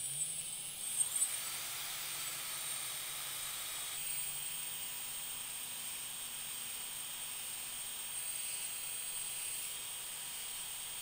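Small brushless outrunner motor spinning steadily under an ESC submerged in salt water, a faint high whine that glides up and settles in the first second or two. The motor keeps running, so the silicone-coated ESC is passing the salt-water dunk test.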